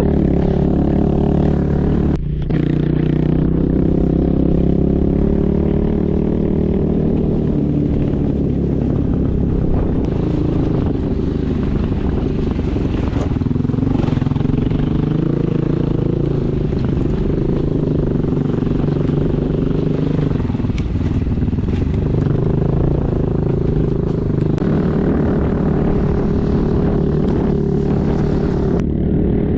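Vehicle engine running steadily under load, its pitch rising and falling as it works along a rough forest track.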